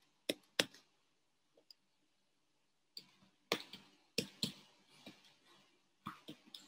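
Sharp key clicks from buttons being pressed one at a time, about ten in all. Two come near the start, then after a pause of about two seconds the rest follow in small groups.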